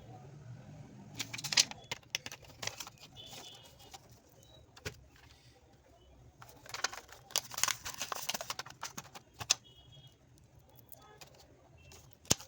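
Small hand tools clicking, tapping and scraping against a phone screen during a glass repair, in two busy clusters with a few single clicks between, over a low steady hum.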